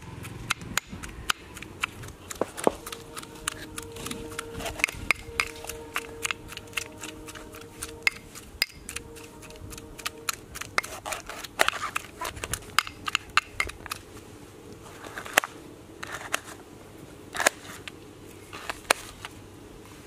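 Kitchen knife slicing tomato and green bell pepper on a melamine plate: a string of sharp, irregular clicks as the blade strikes the plate. A faint steady tone sounds in the background for several seconds near the start.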